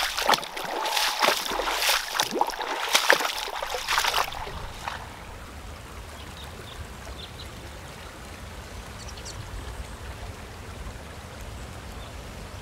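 Shallow rocky mountain stream running and splashing over stones, cutting off about four seconds in. After it, only a quieter low rumble with a few faint high ticks.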